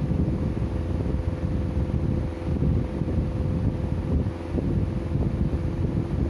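Sleeping domestic cat snoring, a low rough rumble, over a faint steady hum.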